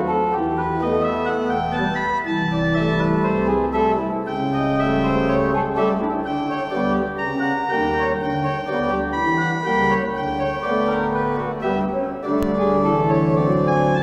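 Church pipe organ playing sustained, changing chords over deep pedal bass notes.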